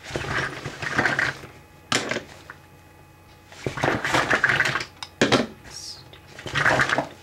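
Rummaging through a cosmetics bag: makeup items rustling and clattering against each other in three bursts, with a couple of sharp clicks between them.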